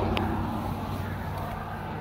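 Steady low engine drone of motor traffic, with a brief click shortly after the start.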